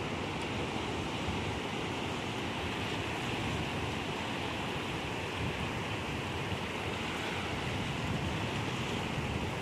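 Ocean surf breaking and washing in over a rocky shoreline, a steady wash of noise.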